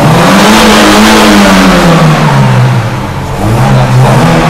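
Daewoo Nexia 2's petrol engine being revved twice. The revs climb in about a second and fall away, then climb again near the end.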